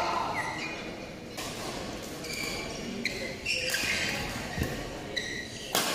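Badminton rally sounds in a large hall: sharp racket strikes on the shuttlecock and short high squeaks of court shoes on the mat, the sharpest strike near the end, with players' voices in the background.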